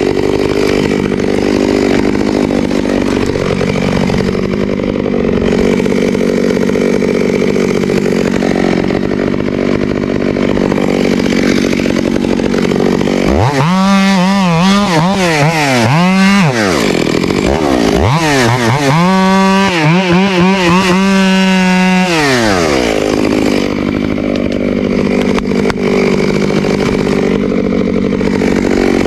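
Two-stroke chainsaw running at high revs while cutting into a tree during felling. For several seconds around the middle its engine pitch swings up and down again and again before settling back to a steady high note.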